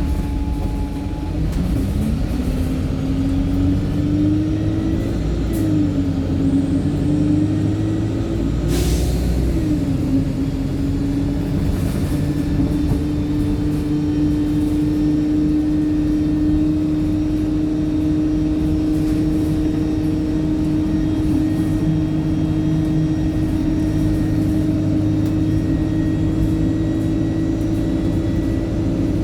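Wright StreetLite single-deck bus's diesel engine pulling away, its note rising, dropping back twice as the gearbox changes up, then holding a steady pitch at cruising speed; the engine is one the owner calls tired. A short burst of noise cuts across it about nine seconds in.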